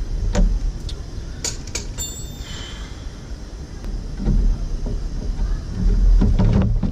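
Hands working the plastic front turn signal housing and bumper parts: scattered sharp clicks and knocks over a steady low rumble, busier near the end.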